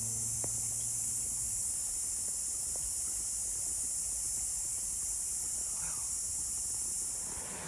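Steady high-pitched drone of an insect chorus. Near the end, the rushing of creek water grows louder beneath it.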